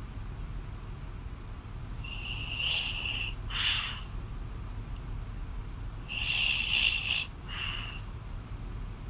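A person snoring heard over a phone call: two slow breaths, each a high whistling snore followed by a short airy puff, over a steady low line hum.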